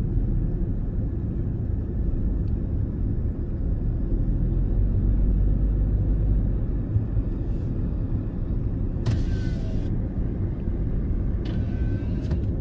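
Steady low rumble of tyre and engine noise heard inside the cabin of a car driving along.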